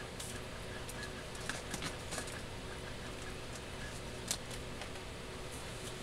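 Quiet room tone: a steady low hum and hiss with a few faint clicks.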